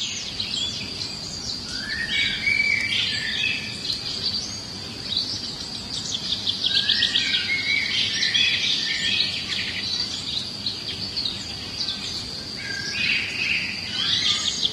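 Small birds chirping and trilling in quick, repeated phrases over a steady, high-pitched buzz.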